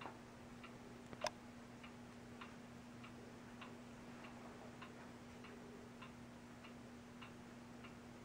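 Faint, regular ticking of a clock, about five ticks every three seconds, with one sharper click about a second in, over a steady low electrical hum.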